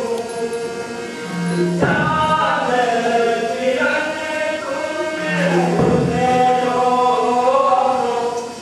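Music with sung, chant-like melodic lines held long and bending in pitch, over a low note that recurs about every four seconds.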